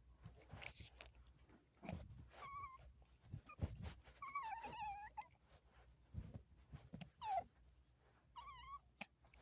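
Faint whimpering of a dog: about five short, wavering high whines, the longest near the middle, with scattered knocks and low thumps in between.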